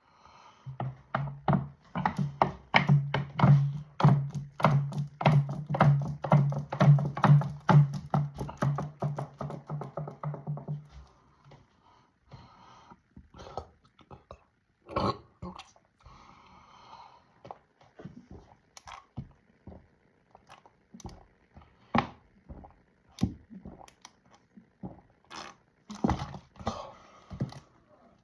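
A person chugging soda from a 2-liter bottle: quick, even gulps about three a second with a steady low hum under them, stopping about eleven seconds in. Scattered soft clicks and breaths follow.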